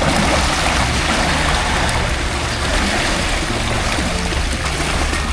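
Background music over a loud, steady rushing noise that comes in suddenly at the start.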